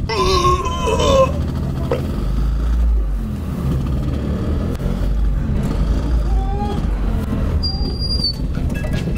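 Small engine of a three-wheeled Piaggio Ape-type microvan running with a steady low rumble as it pulls away and drives along the road. A brief voice-like call comes in the first second.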